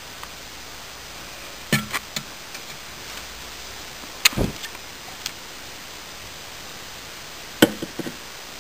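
Handling noise from a handheld camera and a plastic water bottle: scattered sharp knocks and clicks over a steady hiss, the loudest with a low thump about four seconds in and another cluster near the end.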